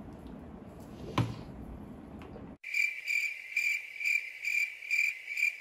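Cricket-chirping sound effect cut in over silence about two and a half seconds in: a steady high chirp repeating about twice a second. Before it, only faint room noise with a single click.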